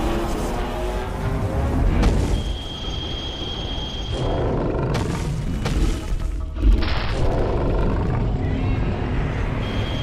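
Cartoon battle soundtrack: background music mixed with heavy booms and crash sound effects. A high steady tone sounds from about two to four seconds in, and the loudest hit comes about two-thirds of the way through.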